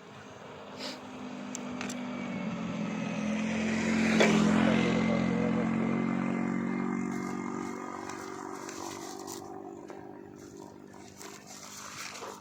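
An engine passing by, growing louder to a peak about four seconds in, then fading away over the next several seconds.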